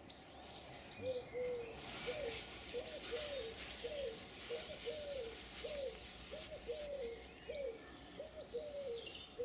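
A pigeon cooing: a long, even run of short, low, arched coos at about two a second, with faint chirping from small birds behind.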